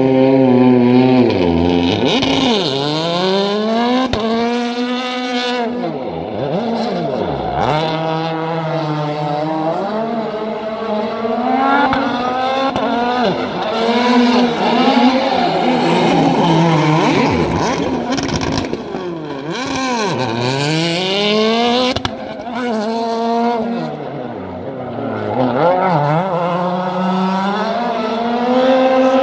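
Hyundai i20 WRC rally car's 1.6-litre turbocharged four-cylinder engine revving hard, its pitch swinging up and down over and over, with tyre squeal as the car spins donuts and drifts on tarmac.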